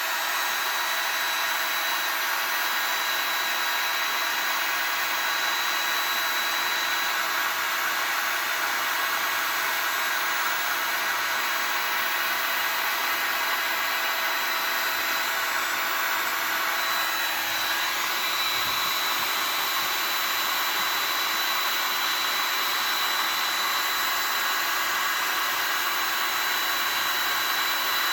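Electric hot-air blower running steadily with a constant whine, heating heat-shrink tubing to shrink it over a spliced laptop power-adapter cable.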